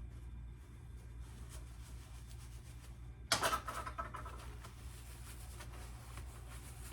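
Quiet handling and rubbing noises as the axe head is wiped clean, with a louder rustling rub a little over three seconds in, over a steady low hum.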